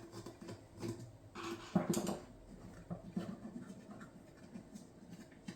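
Faint small clicks and scraping from a hex (Allen) key turning out a small set screw from a paintball marker's mag-fed lower, with light handling of the metal parts; the loudest clicks come about two seconds in.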